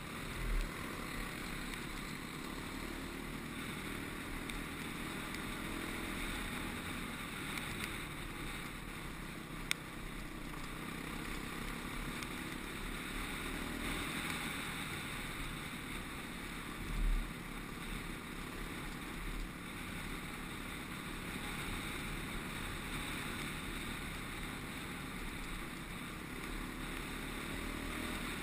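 Dirt bike engine running steadily under way, heard through heavy wind rush on a helmet camera. Two dull thumps, one near the start and one a little past halfway.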